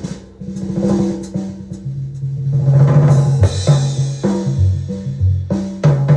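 Small-group acoustic jazz: a drum kit busy with snare hits, rimshots and cymbal wash over a double bass line of held low notes.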